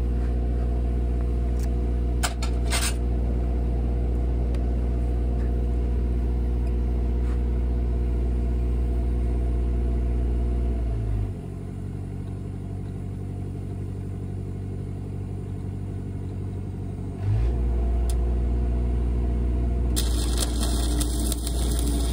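Engine-driven welding machine running steadily under the load of a stick-welding arc. About halfway through it drops to a lower idle as the arc stops, then speeds back up a few seconds later as the arc is struck again. A hissing crackle comes in near the end.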